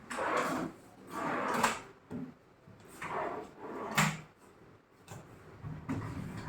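Wooden cabinet drawers sliding open and shut several times, with a sharp knock as a drawer closes, twice.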